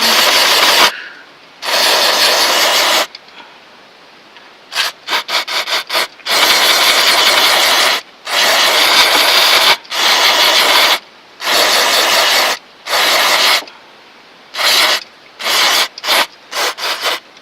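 Aerosol can of brake cleaner spraying in repeated bursts, some long hisses of a second or more and some quick short squirts, washing oil off the engine before a leak is taped.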